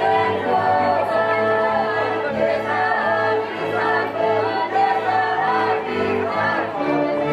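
Live Czech folk music: fiddles play under one held, droning note while a group of voices sings the melody over a moving bass line.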